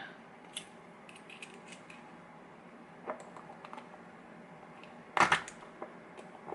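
Small metal clicks and taps from handling a lock cylinder with hand tools, scattered and light, with a louder quick cluster of clicks about five seconds in.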